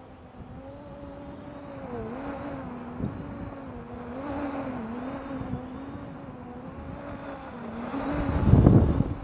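Hubsan H501S quadcopter's brushless motors spinning GemFam 6045 tri-blade propellers: a buzzing hum whose pitch wavers up and down as the throttle changes. Near the end it passes low overhead and a loud rush of prop wash hits the microphone.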